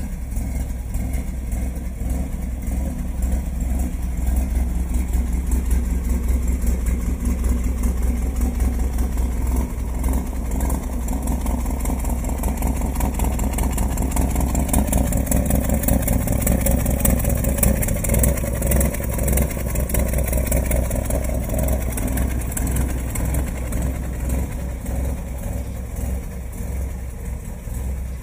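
Engine of a 1936 Dodge K-61V fire truck running steadily. Its speed rises a little about halfway through and settles back near the end.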